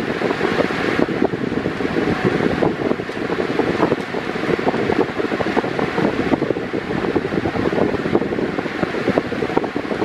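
Mondial Turbo Pro-55 pedestal fan running on its highest speed, fitted with a six-blade Mallory Olimpo TS blade: a steady, loud rush of air blowing toward the microphone.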